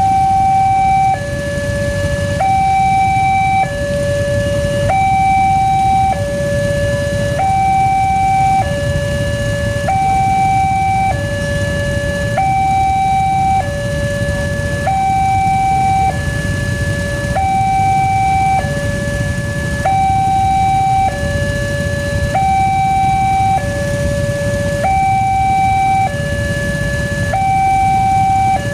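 Railway level-crossing warning siren of the Alkmaar type, sounding a two-tone hi-lo alarm that switches between a higher and a lower note about every 1.2 seconds, over a low steady rumble. It is the crossing's warning that a train is approaching.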